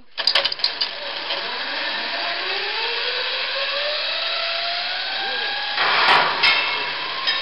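Zipline trolley released onto the steel cable and running away down it: a quick clatter of clicks at the release, then a steady whine that rises slowly in pitch as the trolley picks up speed. A louder burst of noise comes about six seconds in.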